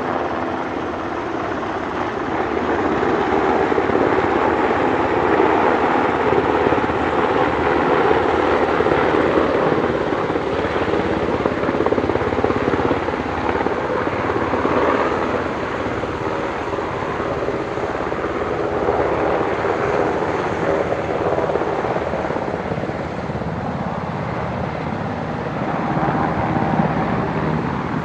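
CH-47 Chinook tandem-rotor helicopters running, one hovering close by: steady rotor and turbine engine noise, getting louder a few seconds in and easing after about ten seconds.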